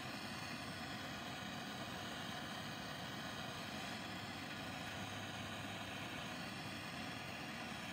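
MAPP gas torch flame burning with a steady hiss as it heats a fluxed copper line-set joint for soft soldering.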